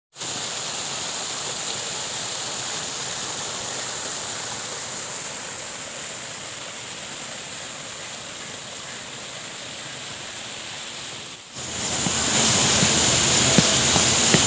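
Water spilling from a small outfall into a canal pool, a steady rushing. About eleven seconds in, it cuts off abruptly to a louder, steady outdoor hiss.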